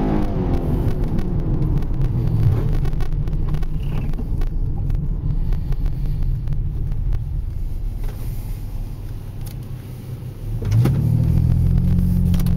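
Dodge Magnum's 3.5-litre V6 with a Blastin Bobs 10 dB exhaust kit, heard from inside the cabin: running low and easing off to a quiet idle as the car stops, then about eleven seconds in the throttle opens and the exhaust note rises sharply and stays loud as the car pulls away.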